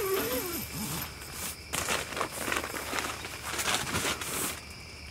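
Rustling and crinkling of tent fabric and mesh, a rapid run of scrapes in the middle seconds, over faint steady cricket chirping. A short wavering voice-like sound trails off in the first second.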